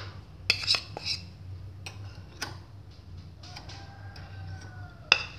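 Metal spoon tapping and clinking against the plastic mixing bowl and the mixer's steel beaters as a sticky dollop of SP cake emulsifier is knocked off it: a few sharp taps, the loudest a little before the end.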